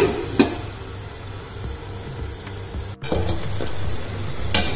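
Stainless steel lid clinking against the rim of a steel cooking pot as it is handled and lifted off: two clinks near the start and one near the end. Between them the chicken curry bubbles at a steady boil, the stage where the oil separates out.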